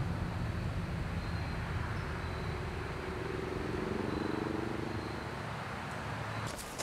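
Low, steady outdoor rumble of a distant vehicle engine, with a faint humming tone that wavers in the middle and a slow fade toward the end. A few sharp clicks come in at the very end.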